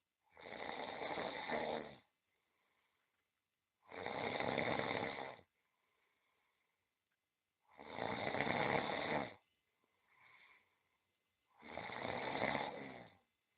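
Domestic cat snoring in its sleep: four snores, each about a second and a half long, coming about every four seconds, with a faint softer breath between the third and fourth.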